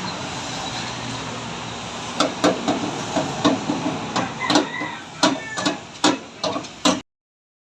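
Steady vehicle and road noise, then from about two seconds in a run of sharp, irregular knocks, about fourteen in all, before the sound cuts off abruptly.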